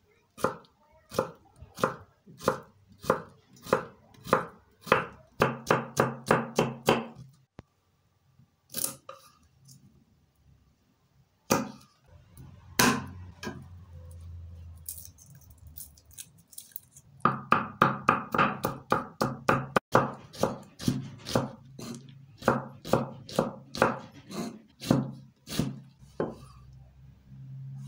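Chef's knife chopping on a wooden cutting board, about three even strikes a second. The chopping stops about a quarter of the way in, gives way to a few single knocks, then resumes in another fast run.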